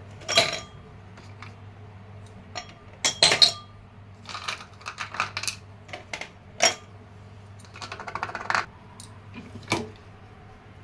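Ice cubes dropped one at a time into two glass tumblers, clinking sharply against the glass. There are about a dozen separate clinks, the loudest near the start and about three seconds in.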